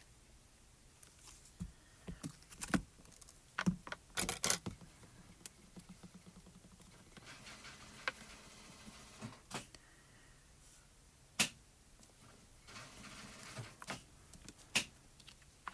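Paper die-cut pieces and small craft tools handled on a work surface: scattered sharp taps and clicks, the loudest cluster a few seconds in, with light paper rustling between them.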